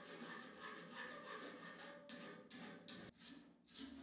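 Hand file rasping in quick back-and-forth strokes on an old metal hacksaw frame held in a vise. About two seconds in, the sound breaks into separate scrubbing strokes with short gaps: a hand wire brush worked on a metal bar.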